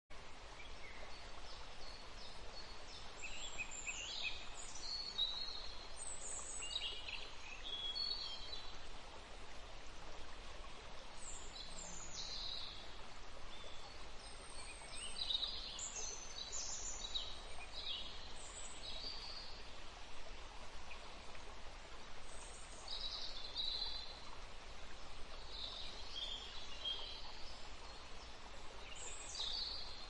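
Small songbirds giving short, high chirps and calls, some sliding downward, scattered throughout over a steady background hiss.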